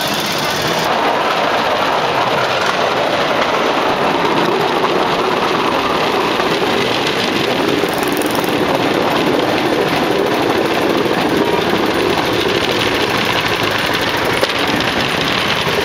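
Bamboo train (norry) running along the rails, its small 6-horsepower gasoline engine running steadily under the noise of the wheels rolling on the track.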